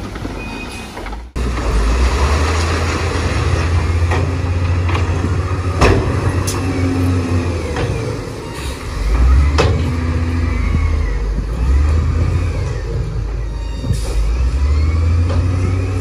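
Heavy earthmoving machinery working rock fill: a deep diesel engine rumble that rises and falls under load, with several sharp metal clanks and knocks and faint squeals of metal on metal.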